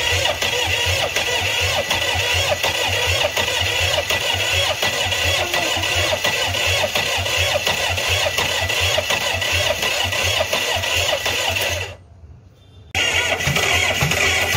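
Multi-cylinder diesel engine running steadily with its rocker cover off, a rhythmic chugging. The sound drops away for about a second near the end, then resumes.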